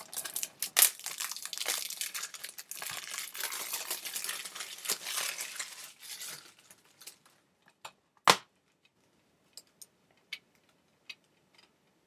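Plastic shrink wrap being torn and crumpled off a Blu-ray case for about six seconds. This is followed by a single sharp click a couple of seconds later and a few faint ticks.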